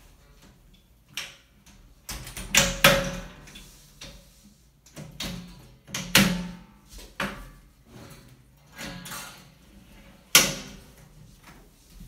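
A sliding closet door panel being lifted and angled into its track: a series of knocks and clunks, the loudest about three seconds in and again near the end.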